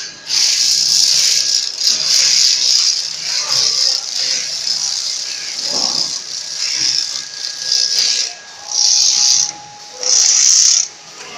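Automatic shrink-sleeve labelling machine running, with a loud high-pitched rattling hiss. The hiss is nearly continuous at first, then comes as two separate bursts of about a second each near the end, over a faint steady whine.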